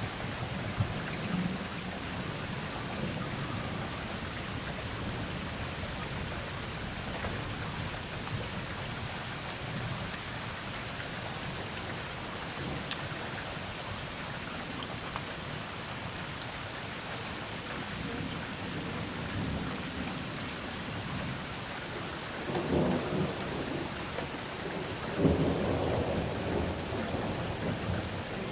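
Steady rain falling during a thunderstorm, with low thunder rumbling, and two louder peals of thunder near the end, about three seconds apart.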